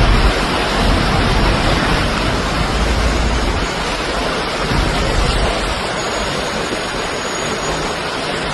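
Storm noise: strong wind and heavy rain, a loud steady rush with uneven low rumbling from wind gusts hitting the microphone.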